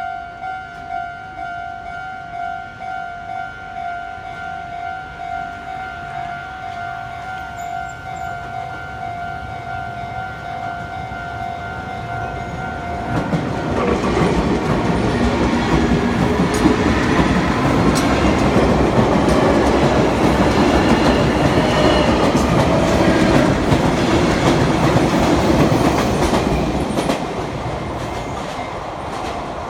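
Japanese level-crossing warning bell ringing steadily in a pulsing tone. About 13 seconds in, a Sotetsu Line electric train passes over the crossing. Its wheel and rail noise drowns the bell for about thirteen seconds, then fades as it moves away.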